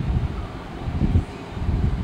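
Low, gusty rumble of air buffeting the microphone, coming and going in irregular bursts.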